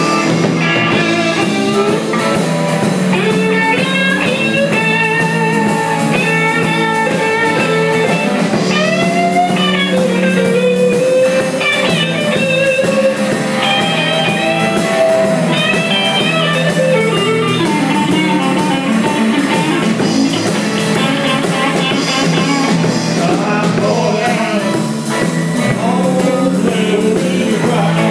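Live blues band playing: electric guitar running quick lines of notes over bass guitar and a drum kit, amplified in a small room.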